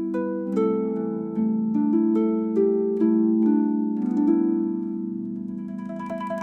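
Slow, gentle instrumental music: a guzheng plucks a slow melody of ringing, fading notes over a held low tone. Near the end a quick, evenly repeated higher note comes in.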